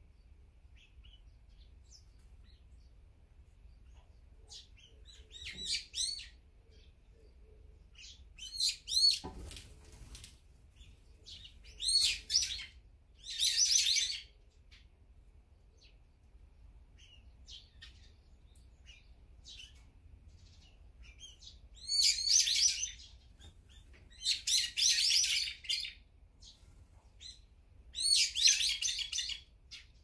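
Brown-eared bulbul giving loud, shrill calls in about seven bouts, each a second or so of rapid repeated notes, with faint chirps in between.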